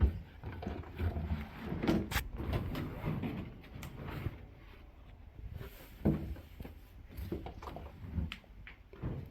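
Irregular handling noises of laundry being moved and loaded into a tumble dryer: soft thumps, knocks and clicks, with a sharp thump at the start and another about six seconds in.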